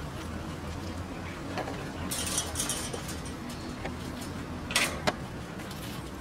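Dogs scuffling in play, with a burst of light metallic jingling about two seconds in and two sharp clicks near the end.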